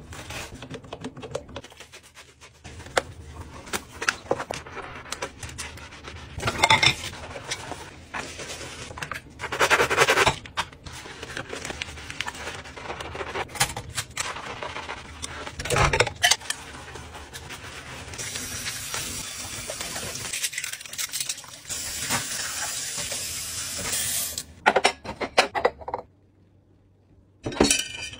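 Dishes being hand-washed at a stainless steel sink: a sponge scrubbing soapy ceramic bowls, with ceramic and glass clinking against each other and the sink. A steady hiss of running tap water comes in for several seconds about two-thirds of the way through.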